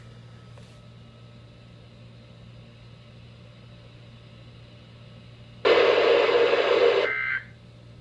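Weather radio receivers sounding a faint steady hum and hiss. Nearly six seconds in, a loud burst of static-like noise lasts about a second and a half. Near the end comes a short, shrill data burst, the first of the end-of-message bursts that close a NOAA Weather Radio test.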